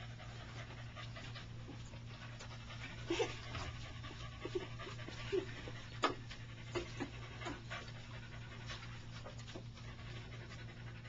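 Small dog panting while it plays with a raccoon, with a few brief squeaks and scuffles scattered through.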